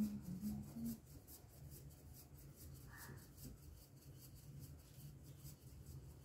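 Wooden hand churn (mathani) twirled back and forth between the palms in a steel pot, churning butter: a quick, even run of soft swishing, scraping strokes.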